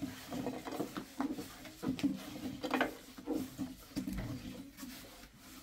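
Irregular light knocks and taps, about two or three a second, over a faint low steady hum.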